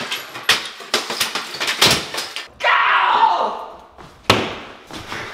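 Sledgehammer blows against drywall and wooden window trim: a series of sharp impacts in a small, bare room, with a longer noisy crash lasting about a second around the middle.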